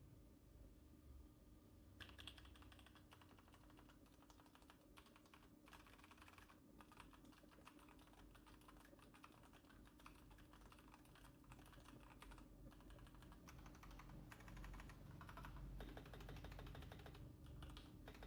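Atas ZA981 V3 mechanical keyboard being typed on: fast runs of key clicks starting about two seconds in, broken by a few short pauses.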